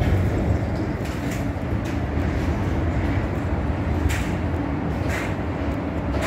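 Steady low rumble of city street traffic, with a few faint short taps of footsteps on the pavement.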